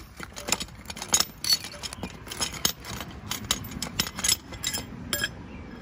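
Light metallic clinks and ticks, several a second and irregular, as the small pressure gauge is unscrewed by hand from a fire extinguisher's valve head.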